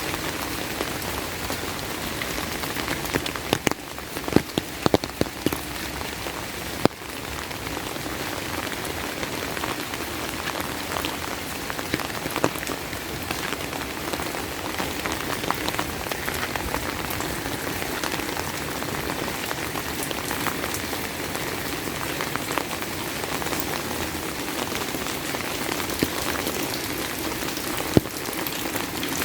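Steady rain falling, with sharp taps of single large drops striking close by, most of them in a cluster a few seconds in.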